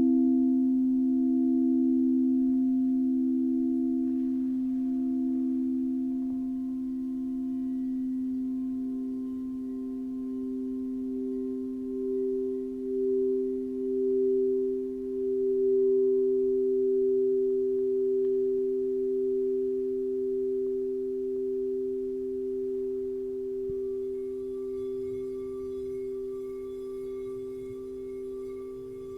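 Quartz crystal singing bowls ringing in overlapping pure, sustained tones that waver in slow beats against each other. A higher bowl swells in several seconds in, and another, higher tone joins near the end.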